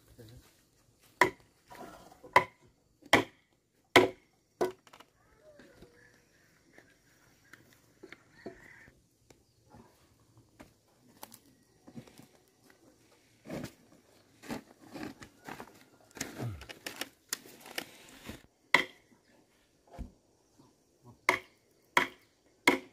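Chopping: irregular sharp wooden strikes, five in quick succession in the first five seconds, then softer scattered knocking, then a few more sharp strikes near the end.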